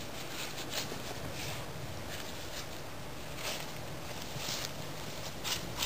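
Dry fallen leaves rustling and crackling in short bursts as a beagle roots through a pile with its nose, over a steady low background noise.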